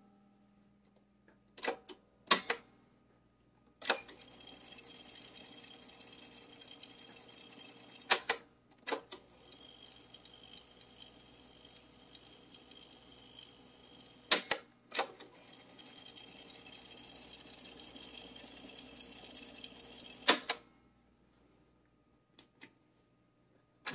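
Pioneer CT-F2121 cassette deck's piano-key transport levers clunking as they are pressed, each press followed by a few seconds of steady whirring as the tape winds at high speed; this happens three times. A couple of small switch clicks near the end.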